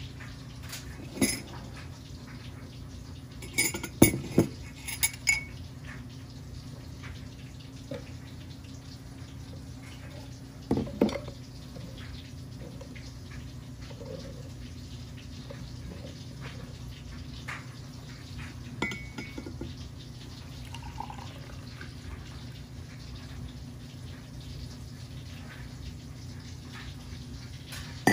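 A glass measuring cup and a ceramic mug clink and knock against each other and the countertop, with the loudest cluster of clinks about four seconds in and a few more later, as brewed coffee is poured from the cup into the mug. A steady low hum runs underneath.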